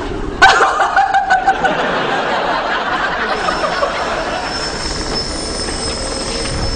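Electric shoe-shine machine running steadily with a thin high whine, over studio audience laughter that breaks out about half a second in.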